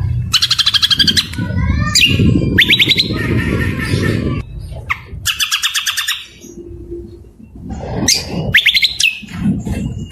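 Songbird singing loudly: bursts about a second long of rapid trilled notes near the start and again around the middle, between quick falling whistled phrases, with sharp rising notes near the end. A low rumble runs underneath.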